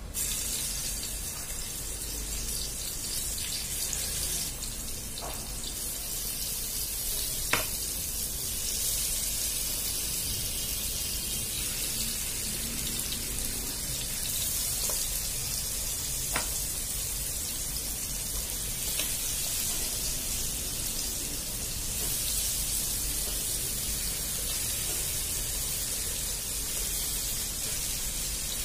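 Spice-coated murrel fish pieces shallow-frying in hot oil in a nonstick pan: a steady sizzle, with a few light clicks of a slotted spatula against the pan.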